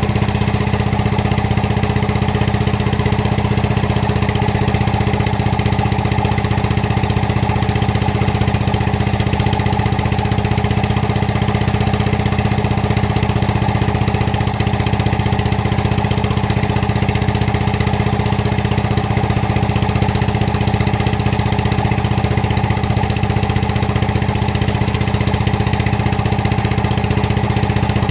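Excavator's diesel engine idling steadily, a constant low hum with no change in speed.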